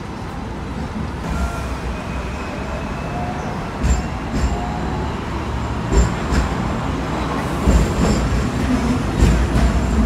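Hong Kong double-decker electric tram running along its rails, heard from on board: a steady rumble that grows louder, with several knocks and faint whining tones over it.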